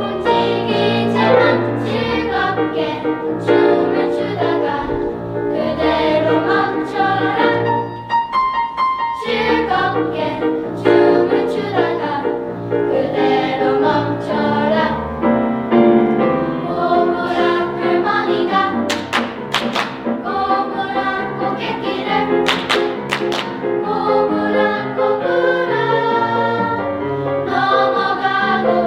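A mixed choir singing in harmony with accompaniment.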